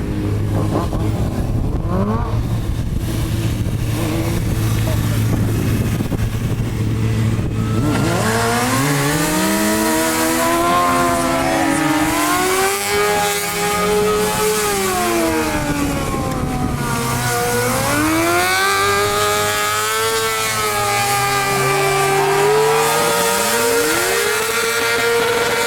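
Stunt motorcycle engine holding a steady low note, then revved up and down in long swells of pitch from about a third of the way in, and held high near the end as it works through a stunt.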